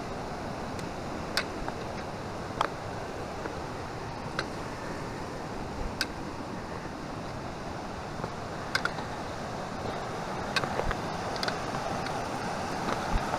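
A fast-flowing mountain creek rushes steadily, growing a little louder near the end, with scattered sharp clicks and knocks over the top.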